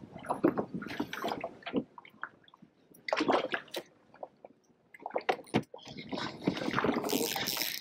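Water splashing and sloshing in irregular clusters of short splashes, with a denser hiss of splashing near the end.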